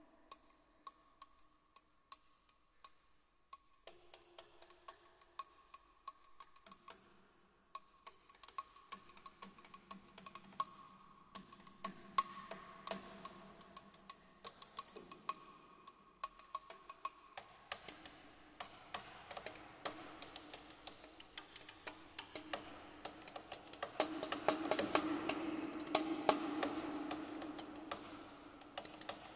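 Solo percussion: drumsticks tapping quick, dry clicks on a small wooden box, sparse at first and growing denser and faster, over steady ringing tones. It swells and grows louder near the end.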